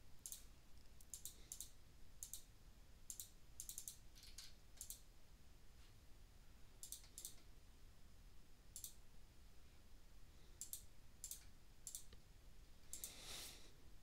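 Faint computer mouse clicks and keyboard keystrokes: short, sharp clicks at irregular intervals, often in quick pairs. Near the end comes a brief soft rush of noise.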